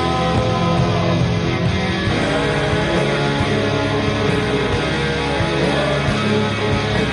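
Heavy metal music with electric guitars, loud and steady, with a couple of sliding pitch bends.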